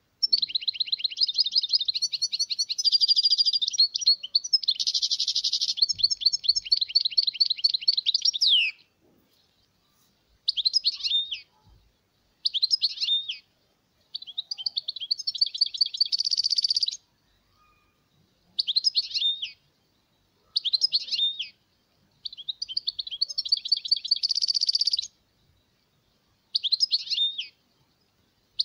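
European goldfinch singing: one long phrase of rapid twittering trills for the first eight seconds or so, then short bursts of song about a second long with pauses between them.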